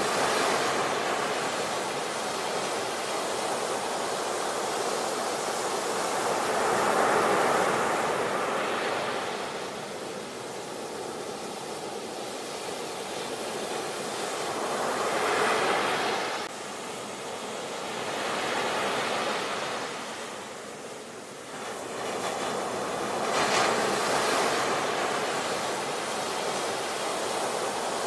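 Sea surf breaking and washing up a beach, a steady rush that swells with each wave about every eight seconds.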